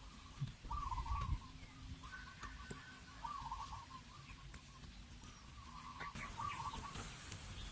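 Bird calls: short wavering phrases repeating every second or two, over a low irregular rumble.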